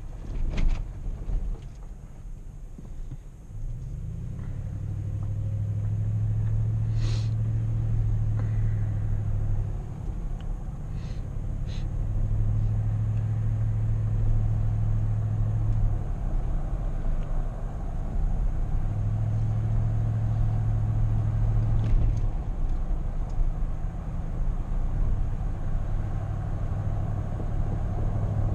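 A car driving along a road: a steady low rumble of engine and tyres that swells and eases every few seconds, with a few short knocks in the first half.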